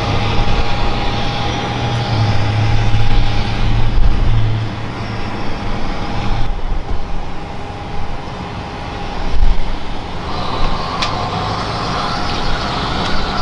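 Steady engine noise of vehicles at an airport forecourt, with a thin steady whine over the first half; the sound changes abruptly about halfway through, then brightens toward the end.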